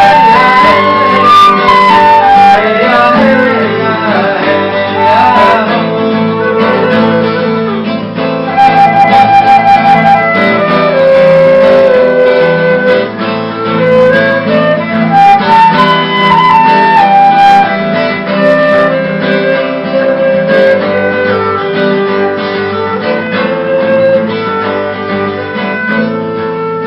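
Live acoustic folk music: a guitar plays chords under a melody of long held notes that slide up and down in pitch.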